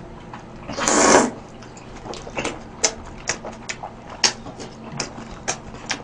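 A person slurps a mouthful of ulmyeon noodles loudly, once, about a second in, then chews wetly with a run of short lip-smacking clicks.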